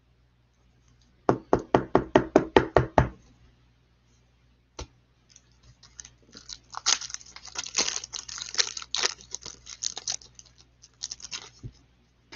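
A quick run of about a dozen knocks, then a trading-card pack being torn open, its wrapper crinkling and tearing for several seconds.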